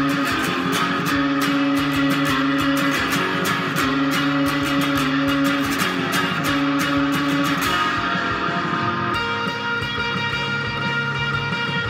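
Fender Jaguar electric guitar played through heavy distortion: fast picked single-note lines with sustained ringing notes. The playing shifts to a different figure about nine seconds in.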